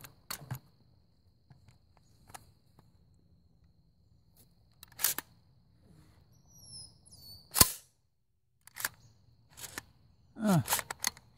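Scattered metallic clicks and clacks of an AR-15-type rifle being handled, with two sharp gunshot reports, one about five seconds in and a louder one about two and a half seconds later, followed near the end by a short run of clacks. A thin steady insect trill runs underneath.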